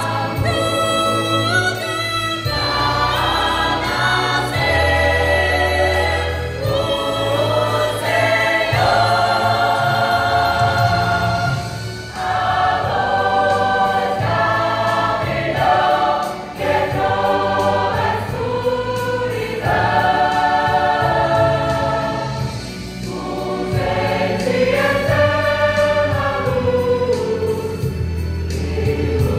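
Church choir singing a Christmas cantata song in phrases of a few seconds each, over instrumental accompaniment with sustained low bass notes.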